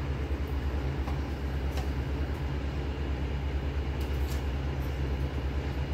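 A steady low rumbling hum with an even hiss over it, unchanging and without distinct events.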